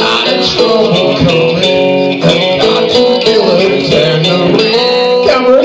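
Karaoke backing track of guitar-led rock with a steady drum beat, with a man singing along into a microphone.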